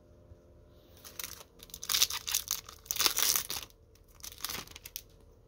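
Small Topps sticker packet being torn open by hand, its wrapper crinkling and tearing in a run of rustling bursts that start about a second in and die down to a few faint rustles near the end.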